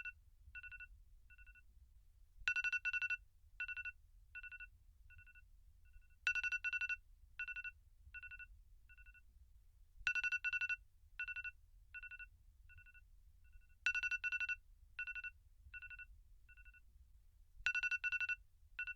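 iPhone alarm tone repeating about every four seconds: a loud cluster of rapid electronic beeps, followed by a string of softer, fading beeps at the same pitch.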